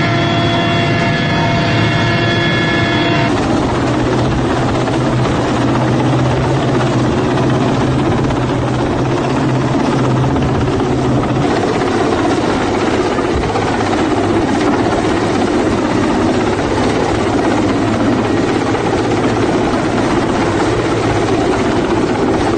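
Military helicopter running loud and steady. For the first three seconds it is heard from inside the cabin as a steady whine of several tones. After that it is heard hovering overhead as dense, even rotor and engine noise, with a low hum that stops about eleven seconds in.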